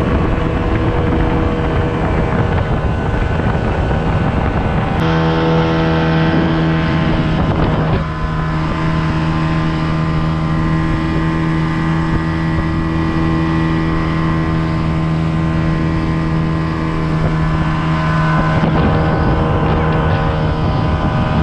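Inflatable boat's outboard motor running steadily at speed, with wind buffeting the microphone.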